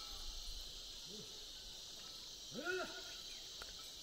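Steady high chirring of insects such as crickets over the field. Two short calls in a person's voice, each rising and falling in pitch, come about one and three seconds in; the second is louder.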